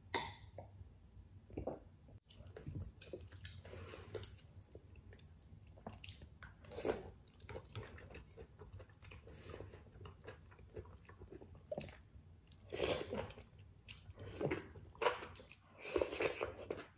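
Close-miked chewing of ramen noodles and seafood, with wet mouth sounds in irregular bursts. The loudest bursts come near the end as noodles are slurped in.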